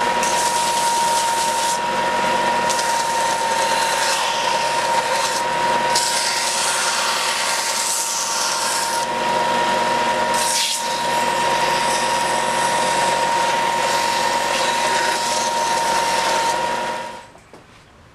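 Benchtop belt sander running, with a steady whine, as a wooden block is held against the moving belt and sanded. The sound cuts off near the end.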